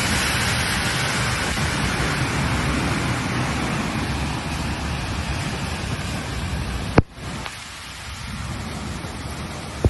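Heavy rain pouring down in a steady, dense hiss. About seven seconds in a sharp click breaks it, and the rain after it is quieter.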